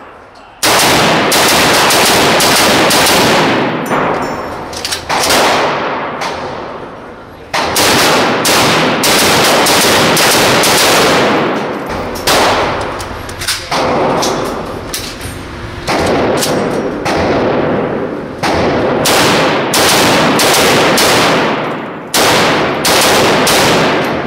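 Rifle fire from a Yugoslav 7.62x39 rifle fitted with a muzzle brake or flash hider: strings of rapid shots with short breaks, each break trailing off in echo.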